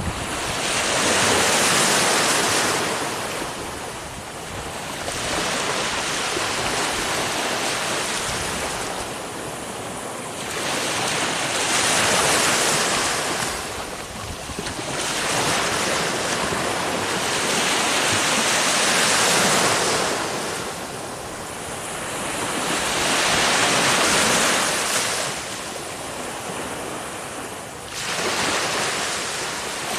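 Ocean surf: waves breaking and washing in, the rush of water swelling and fading again about every five to six seconds.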